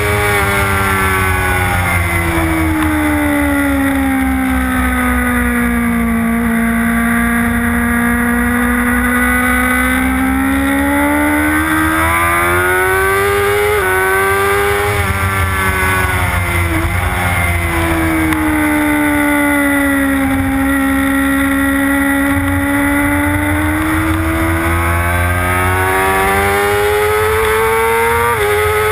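Motorcycle engine heard from on the bike during a track lap: the engine note falls slowly for several seconds and then climbs steadily, twice over, with brief sudden jumps in pitch around the middle and near the end. Wind rushes over the microphone underneath.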